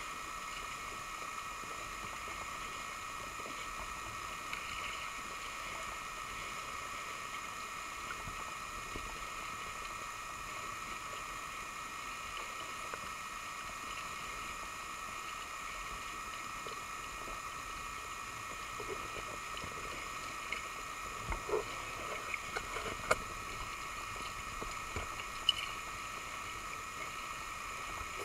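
Water lapping against a sit-on-top kayak while scuba gear is handled on it, under a steady high hum; a few sharp knocks and clicks come in the last third.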